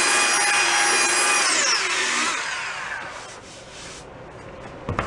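Small 3x18 handheld belt sander running against a wooden snare drum shell, sanding it flat. About a second and a half in it is switched off, and its whine falls in pitch and fades as the belt winds down. A short knock comes near the end.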